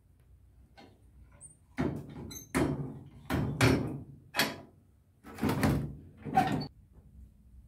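Six or so knocks and scrapes in quick succession, one with a brief metallic ring: objects being handled and set down.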